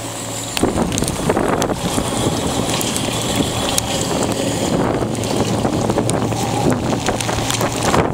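Yamaha outboard motor idling steadily, with wind buffeting the microphone.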